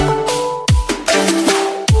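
Electronic background music with a steady beat: deep bass-drum hits that slide down in pitch, sharp snare-like hits and a synth melody.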